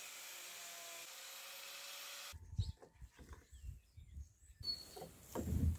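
A small handheld power sander working on a velomobile's shell, a steady hiss, for the first two seconds or so. It then cuts sharply to handling noise of a plastic beacon and light being fitted together: scattered knocks and rubs, the loudest a thump near the end.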